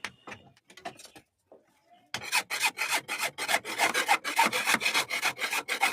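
A hand tool rasping in quick back-and-forth strokes, about five a second, starting about two seconds in after a few scattered clicks.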